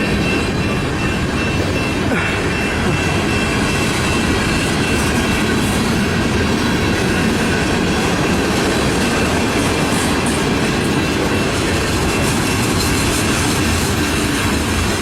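A long CN freight train's cars rolling past at close range: a steady rumble and clatter of steel wheels on the rail joints, with a faint, thin, high squeal running through it.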